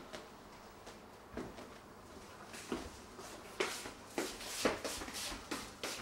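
Footsteps on a hard floor: a person walking briskly, a series of short knocks about two a second that come thicker and louder in the second half.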